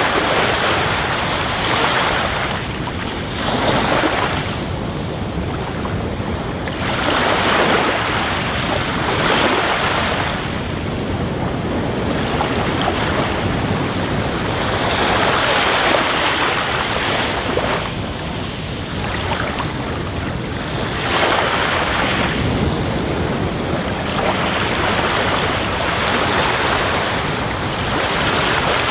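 Aquarium air bubbles rushing and splashing as they break at the water surface, a steady noisy fizz that swells and eases every couple of seconds.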